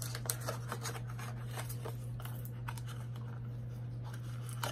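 Cardboard and plastic doll packaging being handled: scattered light clicks, scrapes and rustles as a doll is worked out of its box, over a steady low hum.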